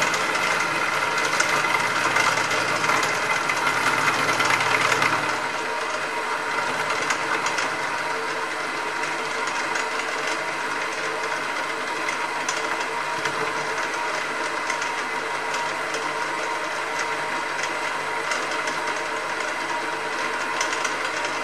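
Hafco HM48 milling machine running and taking a cut in a metal block. The cut is louder for the first five seconds or so, then the machine runs on steadily.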